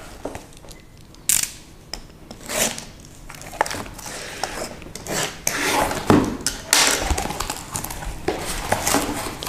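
Packing tape being slit and torn off a cardboard parcel: irregular scraping, crinkling and ripping, with the cardboard flaps being pulled open near the end.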